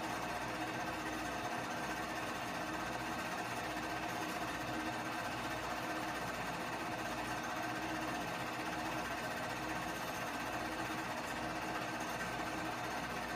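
Keystone K-502 8mm movie projector running steadily: the even mechanical clatter of its film transport, recorded through a phone's microphone.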